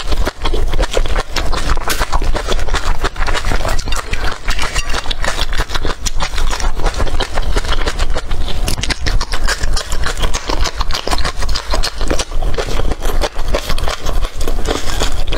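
Close-miked crunching and chewing of green chili peppers: a dense, continuous run of crisp crunches and wet chewing clicks.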